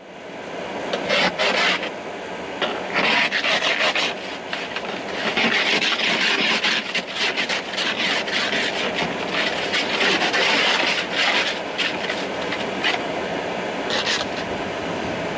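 Ice scraper rasping thick glaze ice off a car windshield, heard from inside the car, in a series of long scraping strokes with a few shorter ones near the end.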